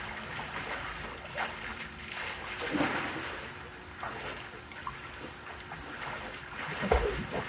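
Water splashing and sloshing as a person swims through a swimming pool, with louder splashes about three seconds in and again near the end.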